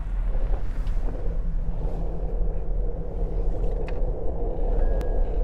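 Skateboard wheels rolling over pavement, a steady low rumble.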